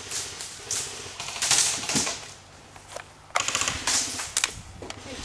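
Airsoft guns firing in several rapid bursts of fast clicking shots.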